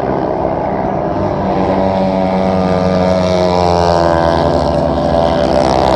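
Speedway motorcycles racing, their single-cylinder engines running at high revs, the engine note dipping and then climbing again midway.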